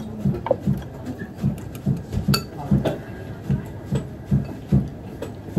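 Chopsticks and tableware clinking lightly against dishes during a meal, over a steady low thudding about two to three times a second.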